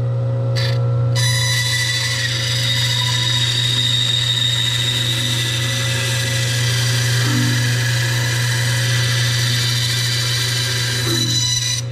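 Grizzly G0555X band saw running with a steady motor hum, its blade cutting a short relief cut into a pine board: the cutting hiss starts about a second in and stops just before the end.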